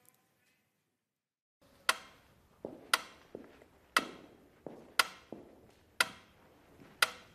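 Dead silence, then a steady series of sharp echoing knocks, about one a second, with fainter ones in between.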